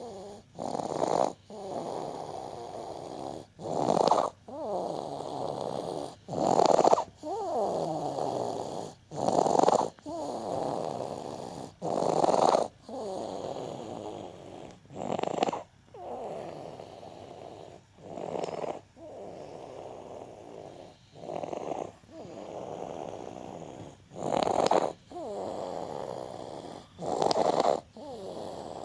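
Wheezing, noisy breathing in a steady rhythm, about one breath every two to three seconds: each breath opens with a short loud rasp and trails into a longer, quieter rattle with falling whistle-like tones.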